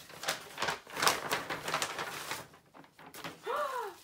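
Paper and plastic packaging rustling and crinkling as it is pulled open and handled, dense and clicky for about two and a half seconds. Near the end a short exclaimed vocal sound rises then falls in pitch.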